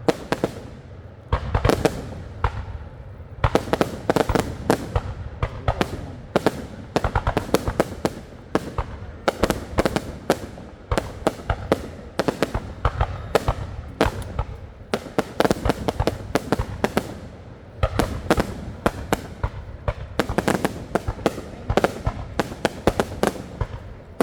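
Fireworks going off without a break: clusters of sharp bangs every second or two, with rapid crackling between them.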